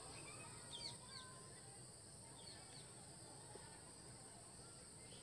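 Near-silent open-air ambience: a few short bird chirps in the first three seconds over a steady, faint, high-pitched insect hum.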